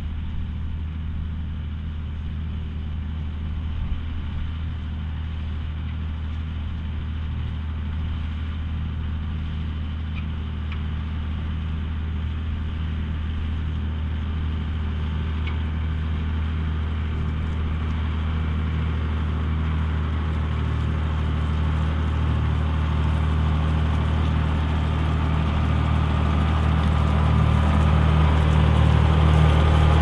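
John Deere 6190R tractor's six-cylinder diesel engine pulling steadily under load while ploughing, a steady low drone that grows louder in the second half as the tractor comes up close.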